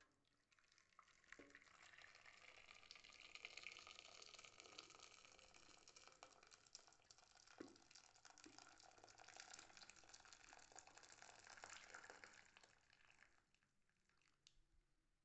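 Food cooking on the stove: a faint, steady crackling hiss of bubbling or sizzling that builds up about a second in and fades out near the end.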